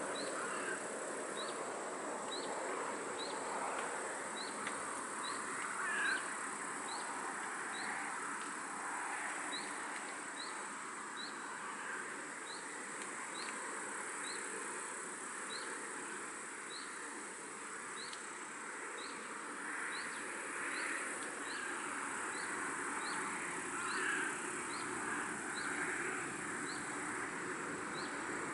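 Countryside pond ambience: a short, high, upward chirp repeats about once a second over a steady high-pitched hum and a soft hiss, with a few brief louder bird calls.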